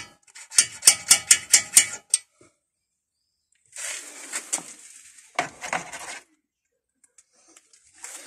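Quick light metallic clicks and taps as brake caliper parts are handled, then a couple of seconds of rough rasping hiss from cleaning the caliper's guide-pin bores.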